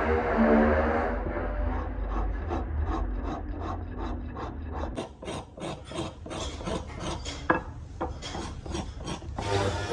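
Rasp filing a wooden shoe blank in quick, even strokes, about three a second. The strokes turn sharper and brighter about halfway through.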